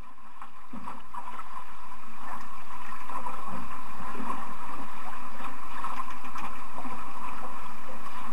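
Steady wind and water noise aboard a small sailing boat on open water, with a few light knocks. It fades in over the first three seconds, then holds steady.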